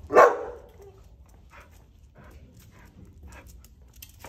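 A dog barks once, loudly, right at the start, then only faint scattered clicks.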